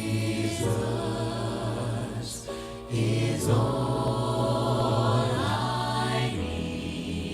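Gospel choir singing in harmony, long held chords without clear words that change every two or three seconds.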